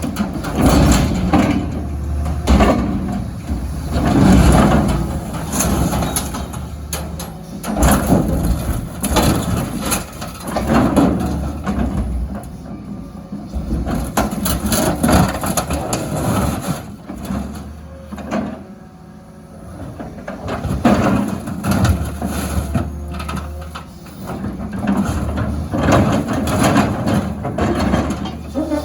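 Excavator crushing metal dumpsters: repeated crunching and banging of metal over a steady diesel engine hum. The engine hum fades briefly a little past the middle.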